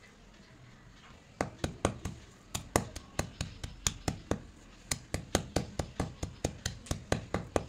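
White slate pencils being struck and crushed under a stone: rapid sharp knocks, a little over four a second, starting about a second and a half in.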